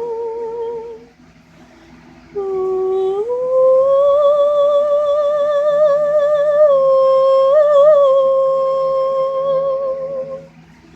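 A person humming long, held notes with a strong wavering vibrato, sounding like a sad movie. A note ends about a second in; after a short pause a low note slides up and is held for about seven seconds, dipping slightly partway through.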